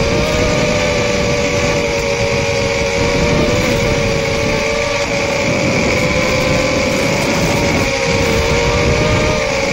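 RekonFPV Rekon 3 quadcopter's motors and propellers whining steadily at cruise throttle, the pitch wavering slightly, over a rushing noise.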